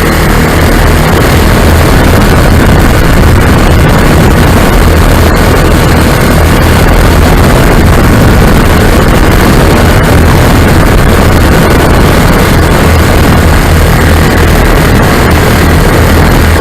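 Lazair ultralight's engines and propellers running steadily in flight, with loud wind rush on the microphone.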